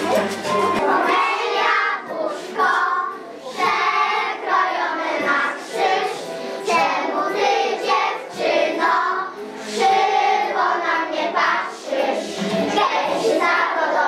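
A group of preschool children singing a Polish folk song together. A recorded instrumental tune cuts off under a second in, just before the singing takes over.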